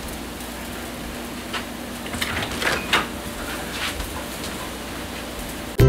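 Indoor room noise with a faint steady hum and a few scattered light clicks and knocks.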